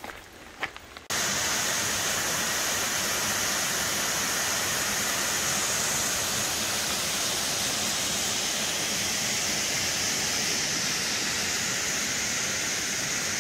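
A few footsteps on a gravel trail, then about a second in a sudden cut to the steady rush of a waterfall pouring into a pool, a loud even hiss of falling water.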